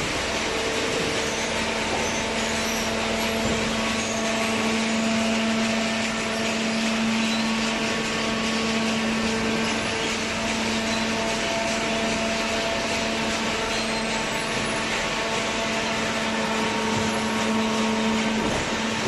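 Hydraulic cardboard baler running: a steady machine hum with a whine. A lower, stronger tone comes in shortly after the start and drops out near the end.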